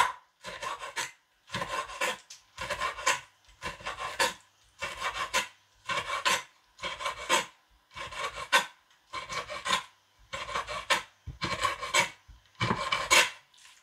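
Large kitchen knife chopping raw fish fillet into chunks on a wooden cutting board, one short cut against the board about every second in an even rhythm.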